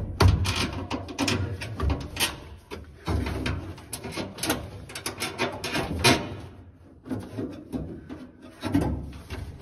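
Repeated knocks, clicks and scraping of hard plastic against metal as a Vintage Air under-dash air-conditioning unit is shifted and pushed up into place against its bracket behind a steel dash.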